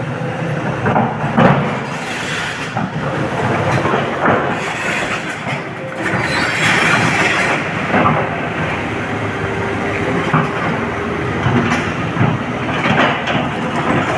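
Excavator's diesel engine running steadily at work, with repeated clanks, knocks and rattles of metal and loose material throughout.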